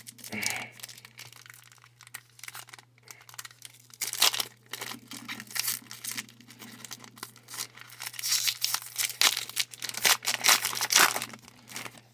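Foil wrapper of a Pokémon booster pack crinkling and being torn open: an irregular run of crackles, loudest in clusters about four seconds in and again from about eight seconds on.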